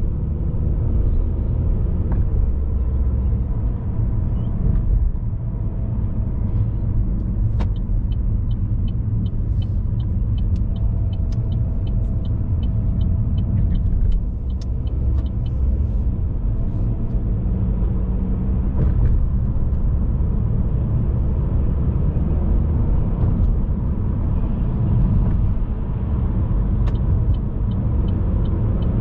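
A car driving, with a steady low rumble of engine and road noise. A run of light, evenly spaced ticks at about two a second comes in partway through and again near the end.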